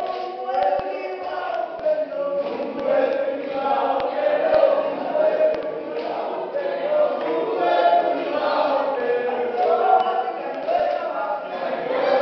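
A group of people singing together in chorus, unaccompanied, the voices blending without a break.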